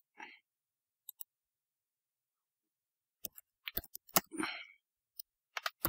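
Computer keyboard typing: quick, irregular key clicks starting about three seconds in, after a nearly quiet stretch.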